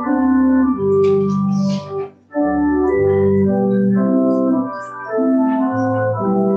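Church organ playing sustained chords over a low bass line, the notes held steady and changing every half second or so, with a brief break about two seconds in.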